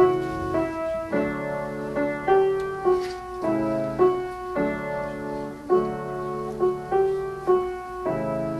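Piano playing a slow song in sustained chords, a new chord or note struck about every half second to a second.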